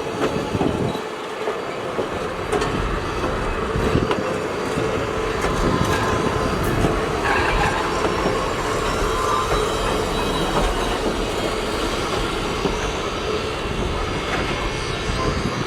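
Passenger train rolling along the track: steady running noise with wheels clicking over the rails and some wheel squeal.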